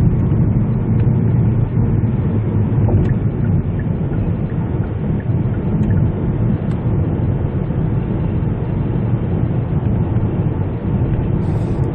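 Steady low rumble of road, tyre and drivetrain noise inside the cabin of a 2019 Kia Niro cruising at highway speed.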